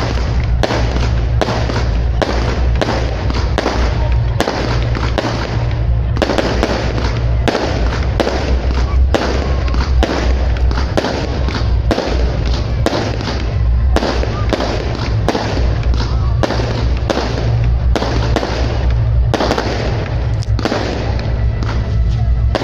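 Fireworks display: a dense, continuous run of shells bursting, several sharp reports a second, over a steady low rumble.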